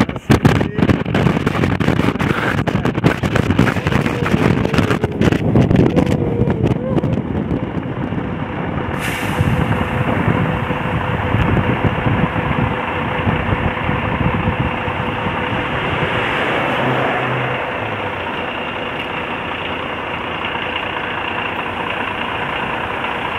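Tour bus driving along a mountain road, its engine and road noise heard from inside the cabin. Wind buffets the microphone during the first several seconds, then the running noise settles to a steady level.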